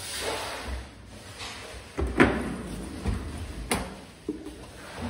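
Wooden kitchen cabinet doors being worked by hand: a few swishes and knocks as they open and shut, with the loudest knock about two seconds in and a sharp click later.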